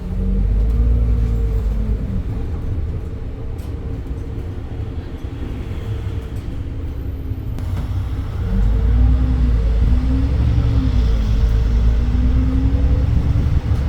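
Edison Motors Smart 110G city bus heard from inside the cabin, its GX12P CNG engine pulling the bus along. The engine pitch climbs and drops back several times as the ZF Ecolife six-speed automatic shifts. It eases off for several seconds in the middle, then pulls harder again about eight seconds in.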